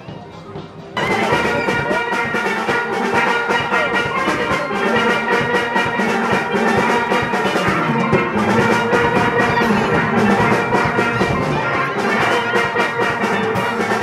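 Steel band playing a tune together on many steelpans, with a dense stream of ringing struck notes. The music jumps up suddenly to full loudness about a second in.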